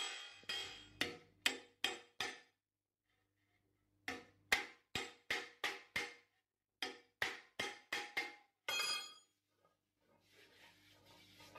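Steel sheet panel being struck with a hammer on a steel plate: three quick runs of sharp, ringing metallic blows, about three or four a second, with short pauses between them. A brief ringing follows, then faint rubbing of the panel near the end.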